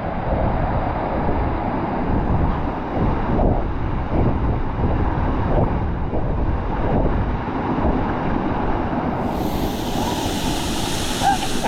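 Rushing water of a waterfall, a steady loud roar with wind buffeting the microphone; about nine seconds in a brighter hiss, like spray or water close by, joins for a couple of seconds.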